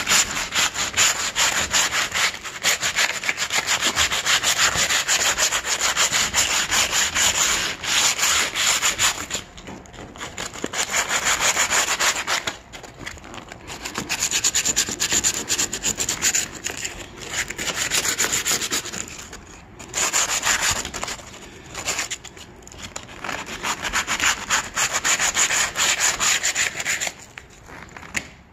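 Sanding a surface, a scratchy rasping in spells of several seconds with short breaks between them. It is surface prep before the gap is sealed with silicone.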